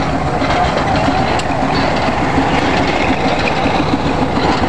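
Steam traction engine running, with a steady rapid mechanical beat.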